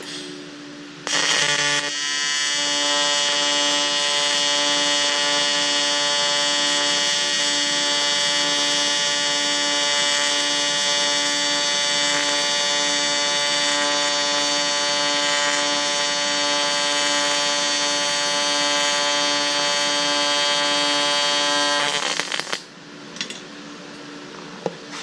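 AC TIG welding arc buzzing steadily on thin aluminum square tubing, with a slow regular pulse under the buzz; it strikes about a second in and stops about 22 seconds in. At this amperage the arc burns through the thin tubing quickly.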